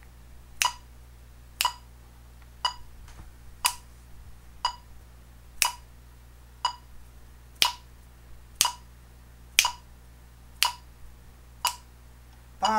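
Metronome clicking steadily at about one beat a second (around 60 bpm), with sharp, short electronic clicks.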